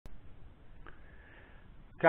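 Quiet room noise in a small room, with a sharp click at the very start and a faint thin high tone lasting under a second about halfway through.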